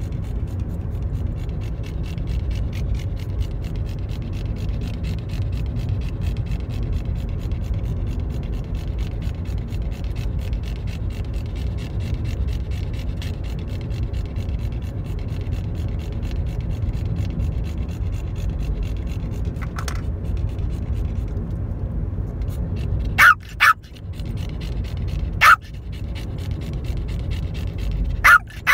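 Steady low rumble of a car driving, heard from inside the cabin. In the last few seconds several short, loud, sharp sounds break through.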